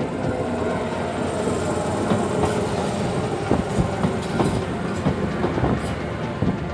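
Shizuoka Railway electric commuter train passing close by at a level crossing, running noise with wheels clacking over rail joints in a fast, uneven run of clicks from about two seconds in.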